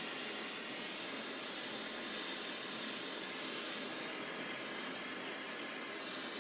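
Jeweler's soldering torch flame burning with a steady hiss while heating a small metal piece to flow solder.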